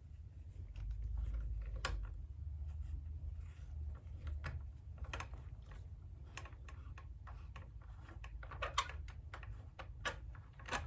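Irregular light clicks and taps, with low handling rumble, as a tool works the handlebar clamp of a balance bike to tighten it; the clicks come more thickly in the second half.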